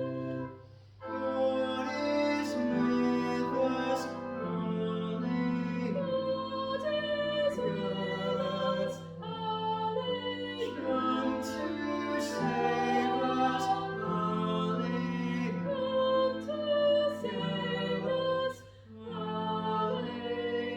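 A slow hymn sung over instrumental accompaniment, in long held notes. The music drops away briefly about a second in and again near the end, between phrases.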